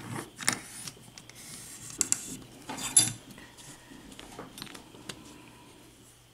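Small metal clinks and rattles of a padlock and its key or lock-picking tools being handled, a few sharper clinks in the first three seconds, then only light taps.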